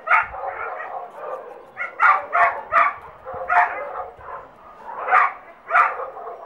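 A German Shepherd-type dog barking during play: about eight short, sharp barks, spaced unevenly, with a cluster of quick ones around two to three seconds in.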